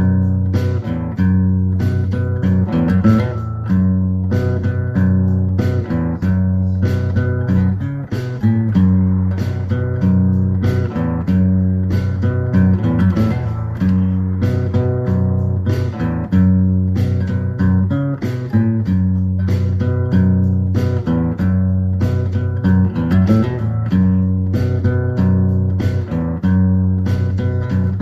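Background music led by plucked guitar, with a steady beat and a bass line.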